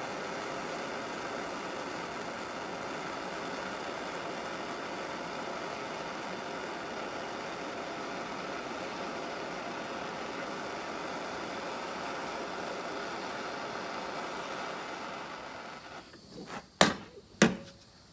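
A steady rushing hiss that dies away about fifteen seconds in, followed by two sharp clicks.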